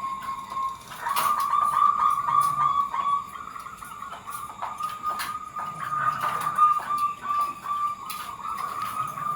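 Zebra dove (perkutut) cooing: rapid runs of notes held near one pitch, going on through the whole stretch, with a few sharp clicks.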